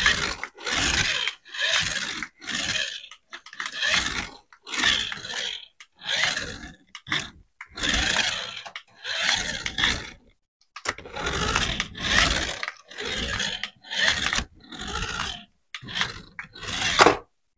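A run of short, rough scraping or rustling strokes, about one a second, each cut off by a brief gap.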